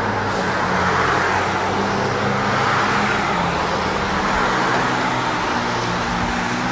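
Road traffic close by: a steady engine hum with tyre noise from passing motor vehicles, swelling slightly now and then.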